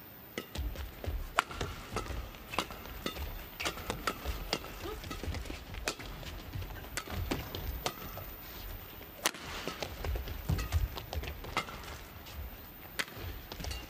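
Badminton rally: rackets striking the shuttlecock in a quick, irregular run of sharp hits, with players' footfalls and short shoe squeaks on the court.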